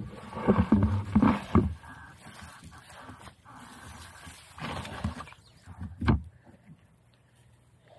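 A person scrambling up a steep, grassy, muddy riverbank: rustling vegetation, scuffing and squelching footing, with short strained grunts of effort in the first two seconds and a sharp knock a little after the middle.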